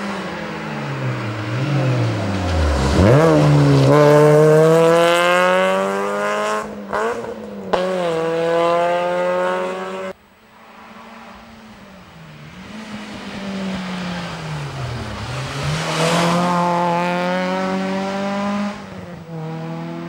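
Two rally cars pass at full throttle, one after the other. Each engine's note drops as the car goes by close, then climbs high as it accelerates away, broken briefly at each gear change. A sudden cut about halfway through separates the two passes.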